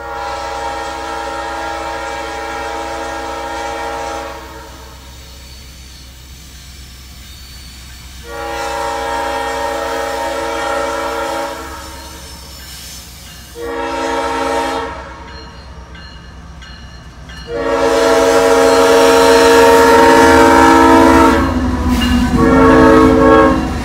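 CSX ES44AH diesel locomotive's multi-chime air horn sounding the grade-crossing signal: two long blasts, a short one and a long one, then one more short blast, the last long blast the loudest. Near the end the low rumble of the passing locomotive and freight cars swells under the horn.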